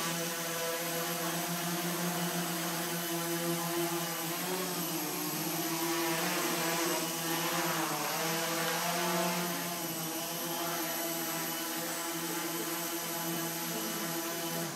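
Multirotor photo drone in flight, its electric motors and propellers giving a steady many-toned buzz whose pitch wavers slightly as the motors adjust. The buzz stops abruptly at the end.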